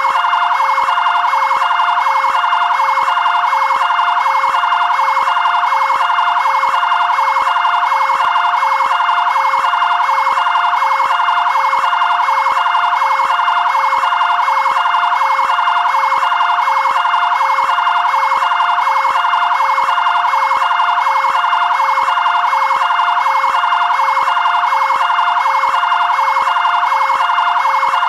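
Fire-department area-command vehicle siren sounding continuously: a loud two-tone (bitonal) siren repeating in a quick, even cycle.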